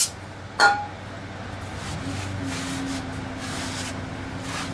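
A shop rag wiping and scrubbing a brake rotor freshly wet with brake cleaner, a steady rubbing. About half a second in there is one short metallic clink.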